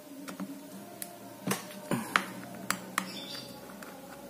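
Small metal parts of a Jigging Master Violent Slow fishing reel clicking and tapping as its handle is unscrewed and taken off, about eight sharp, irregular clicks.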